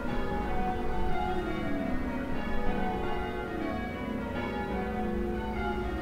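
Change ringing on a 12cwt ring of eight church bells, the back six cast by Mears and Stainbank: the bells strike one after another in a steady run, each stroke ringing on over the next.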